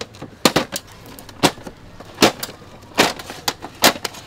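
Slats of a Brunner folding camping table's roll-up tabletop clacking against each other and the frame as the top is lifted off and folded together: about eight sharp, irregular clacks.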